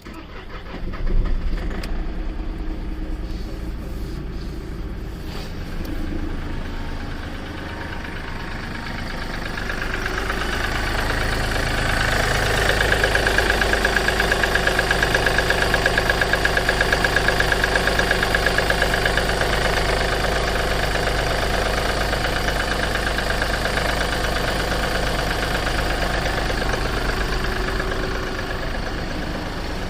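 Seat Ibiza 1.2 TDI three-cylinder diesel starting from cold and catching about a second in, then idling with a regular pulsing knock. The owner reports this knock when the engine is cold.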